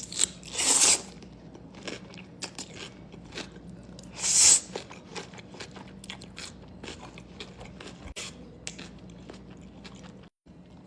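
Close-miked crunchy bites into fresh cucumber: two loud crunches, about a second in and again about four seconds in, each followed by chewing with many small wet clicks.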